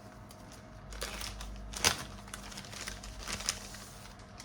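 Crinkly rustling and small clicks of laptop parts being handled, with one sharper click a little under two seconds in.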